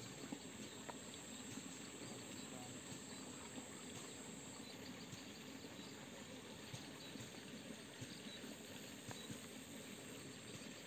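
Faint outdoor ambience by a small stream: a thin, steady, high insect drone that stops about halfway through, over a low even hiss, with a few soft ticks.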